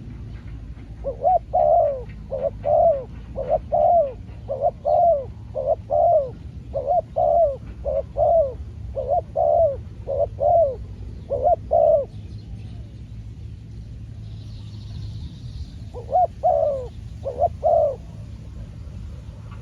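Spotted dove cooing: a steady run of short, paired coo notes about once a second, breaking off for a few seconds and then starting again near the end.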